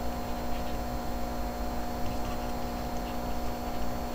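Steady electrical hum and low background rumble of the recording, with a few faint ticks scattered through it.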